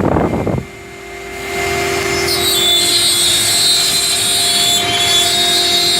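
CNC wood router at work: the bit cutting into wood makes a rough rasping noise that stops suddenly about half a second in. The spindle's steady whine carries on, and a higher-pitched whine joins in about two seconds in.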